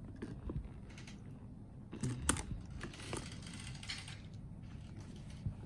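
Handling of a grained-calfskin Dior Saddle Bag and its strap: scattered light clicks of the metal hardware and soft rustling, with one sharper click about two seconds in.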